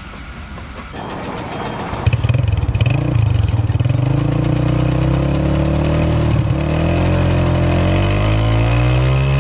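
An engine running loudly from about two seconds in, its pitch wavering, then rising steadily near the end as it revs up.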